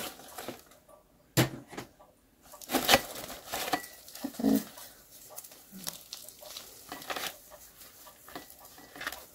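Irregular rustles, crackles and soft knocks of hands pulling and crumbling potting soil off a houseplant's roots.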